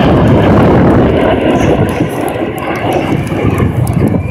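Jet engines of a formation of six fighter jets flying past, a loud, even roar that eases somewhat after about two seconds.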